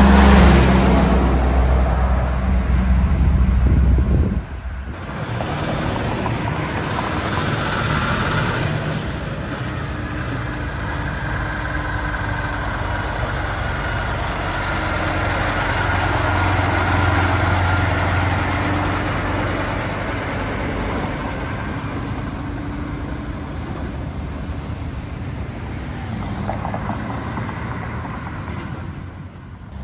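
Trucks and road traffic. A heavy engine rumbles loudly for the first four seconds or so and cuts off abruptly, followed by steady road noise with vehicles swelling past now and then.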